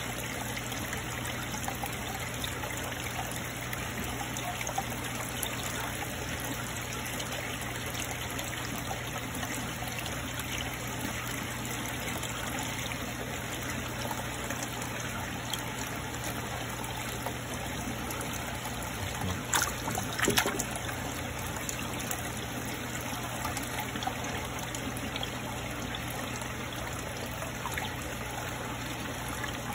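Water trickling steadily over a low steady hum, with a couple of brief knocks about twenty seconds in.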